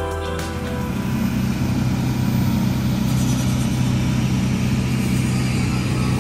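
An engine running steadily with a deep, even hum.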